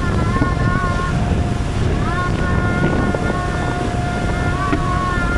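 Motorboat engine running at speed, with wind buffeting the microphone and water rushing past the hull. A wavering higher tone comes and goes over the steady rumble.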